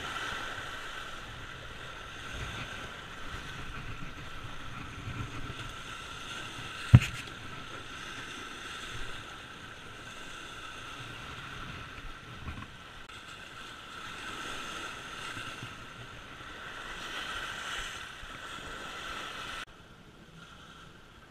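Choppy lake water splashing and lapping against a rocky shore, with wind buffeting the microphone. A single sharp knock about seven seconds in.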